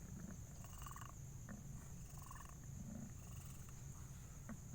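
Mother cat purring in labour, a low steady rumble.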